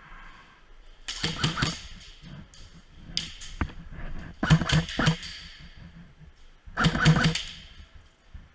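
Airsoft guns firing in about five short rapid bursts of sharp clicks and pops, each ringing briefly off the walls.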